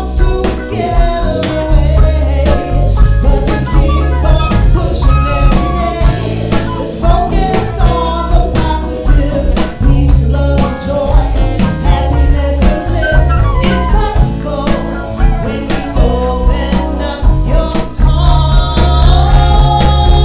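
Live band playing a song: a flute carries a melodic line over electric bass, guitar and steady percussion.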